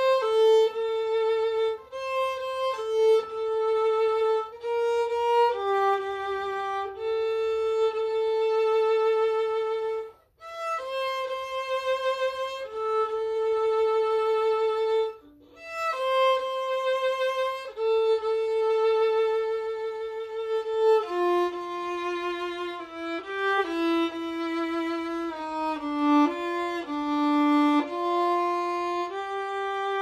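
Solo violin playing a slow melody in long held notes, one note at a time with a light vibrato, with short breaks about ten seconds in and again around fifteen seconds.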